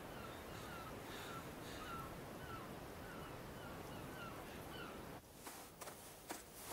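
Faint, evenly spaced short chirps, about two a second, over a steady wind-like hiss; they stop about five seconds in, and a few sharp clicks follow.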